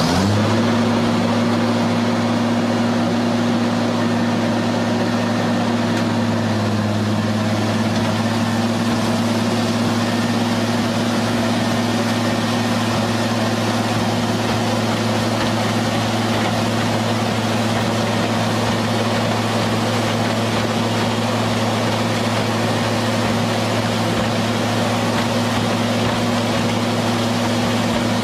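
Heavy diesel engine of a mobile scrap shredder running steadily under load as a car is fed in, a loud even low drone; its pitch dips slightly about six seconds in.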